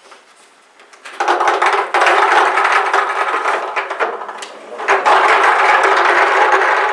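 Numbered plastic balls clattering and rattling inside a draw drum as it is turned, a dense run of clicks starting about a second in, easing briefly a little after four seconds, then going on.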